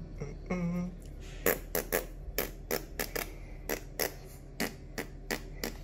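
A run of sharp clicks or taps, about three a second, starting about a second and a half in, over a low steady hum.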